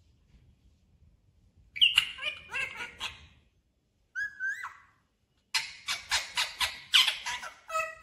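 Indian ringneck parakeet calling: after a near-silent start, a run of sharp, sliding squawks from about two seconds in, a short rising-and-falling call around four seconds, then a quick string of calls over the last few seconds.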